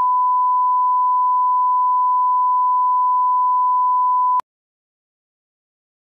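Steady 1 kHz bars-and-tone reference tone from a broadcast commercial slate. It stops abruptly with a click about four and a half seconds in.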